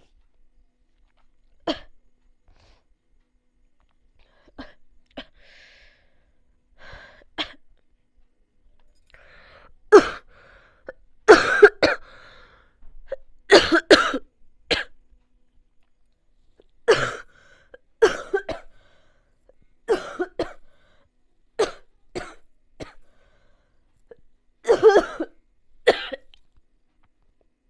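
A person coughing over and over in short bouts. There are a few faint coughs at first, then louder coughs from about ten seconds in, often two or three in quick succession.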